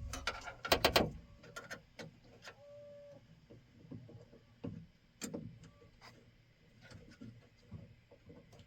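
Tools and metal parts being handled while the truck's door latch is fitted: a quick run of sharp clicks and clatter in the first second, then scattered light clicks and knocks, with a brief squeak about three seconds in.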